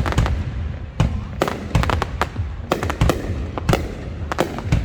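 Fireworks display: sharp bangs of bursting shells a few each second, over a continuous low rumble.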